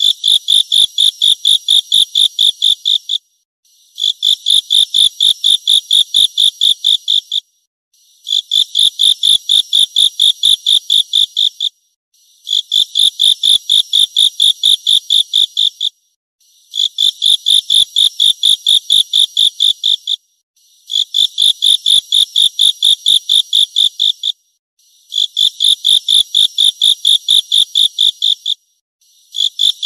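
Insect song, given as a grasshopper's: a high, pulsing call in repeated phrases of about three seconds, each a rapid train of about five pulses a second, with a pause of about a second between phrases.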